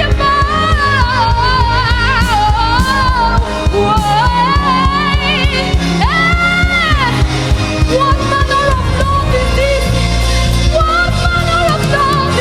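Slow gospel worship music: a lead singer holds and bends long melodic lines with vibrato over a steady band bed of keyboard and bass.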